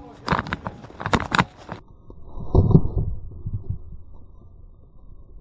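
Sharp clicks and knocks for a couple of seconds, then the sound turns suddenly muffled: dull low thumps and rubbing, loudest about three seconds in, typical of a body-worn camera brushing against a jacket.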